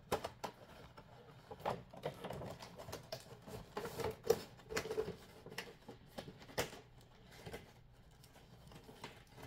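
Cardboard toy box with a plastic window being handled and slid into its cardboard outer sleeve: irregular scraping, rustling and light taps of card and plastic.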